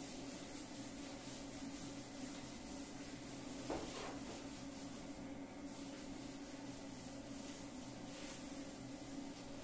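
Whiteboard duster rubbing across a whiteboard in repeated faint wiping strokes as writing is erased, over a steady low hum, with one light knock a little under four seconds in.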